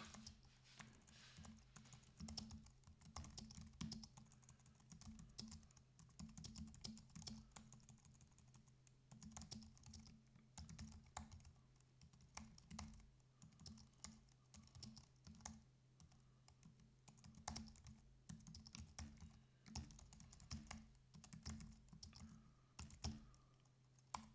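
Typing on a computer keyboard: faint runs of quick keystrokes with short pauses between words and phrases, over a steady low hum.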